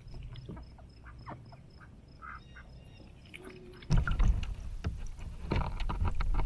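Ducks quacking intermittently. About four seconds in, loud splashing water starts suddenly and carries on to the end.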